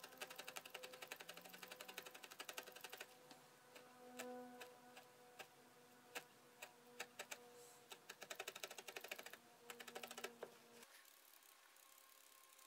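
Wool being stabbed repeatedly with a wooden-handled felting needle: faint quick ticking, rapid for the first few seconds, then sparser and uneven, picking up again before stopping about 11 seconds in.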